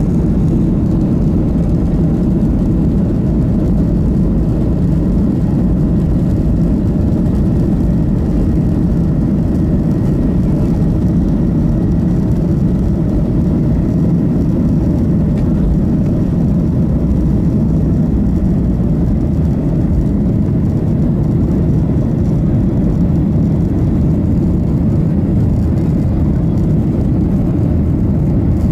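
Boeing 737-800 heard from the passenger cabin during its takeoff roll and climb-out: its CFM56-7B turbofan engines at takeoff thrust, a loud, steady, deep rumbling noise that stays level throughout.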